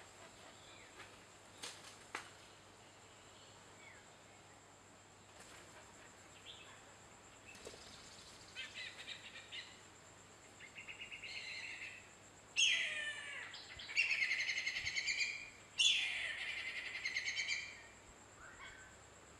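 Whistling kite calling: quieter chattering notes build up, then about two-thirds of the way in come two loud descending whistles, each followed by a fast run of short staccato notes.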